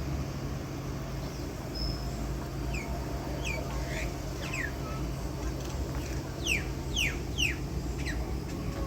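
A bird calling in short notes that fall sharply in pitch, a few at a time: a group of about four a third of the way in, then three louder ones past the middle. A steady low hum runs underneath.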